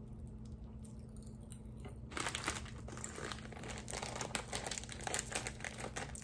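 Crinkly foil-lined snack bag being handled and pulled open: a dense crackling that starts about two seconds in, after a few faint crinkles.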